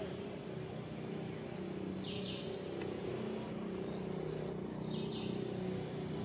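Steady low hum with a short, high chirring call that comes twice, about two and five seconds in.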